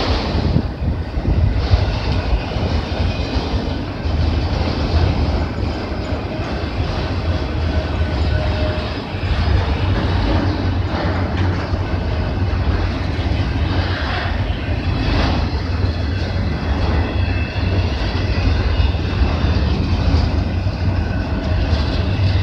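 Freight train of autorack cars rolling past close by: a steady rumble of steel wheels on rail, with clickety-clack knocks as the wheels cross rail joints.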